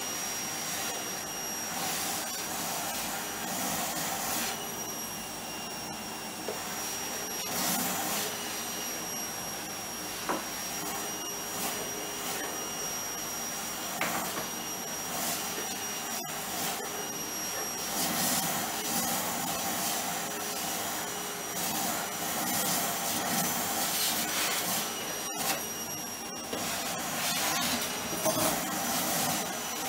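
Vacuum cleaner running continuously, with a steady high whine over its suction noise. The noise swells and eases as the hose nozzle is worked over the floor, with a couple of light knocks.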